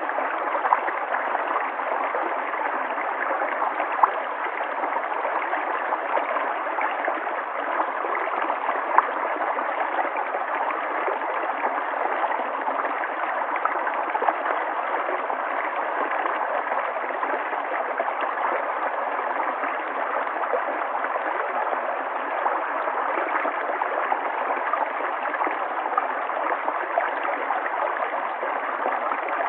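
River water flowing steadily over rocks, a constant rushing with small splashes and gurgles.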